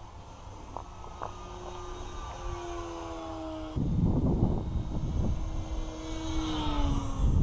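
Electric brushless motor and propeller of an E-flite P-51D Mustang 1.2m RC plane whining as it flies past, the pitch falling with each pass, twice. About four seconds in, a low rumble of wind on the microphone comes in suddenly.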